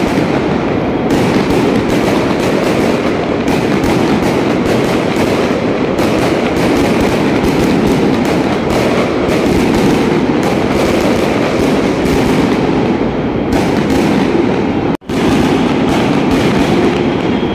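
Aerial fireworks barrage: a dense, continuous stream of bangs and crackling as shells burst in quick succession. The sound cuts out for an instant near the end.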